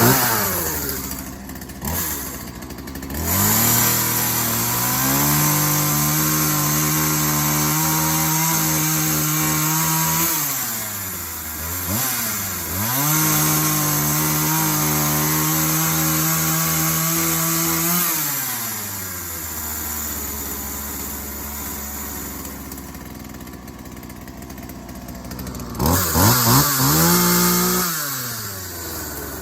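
McCulloch two-stroke chainsaw on a new chain: a few short revs, then held at full throttle twice for several seconds each while cutting wood, before dropping back to a steady idle. There is one more brief rev near the end. It is running well.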